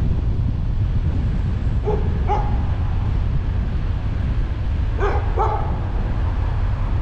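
A dog barking, two quick barks about two seconds in and two more about five seconds in, over the steady low rumble of the car's road and wind noise.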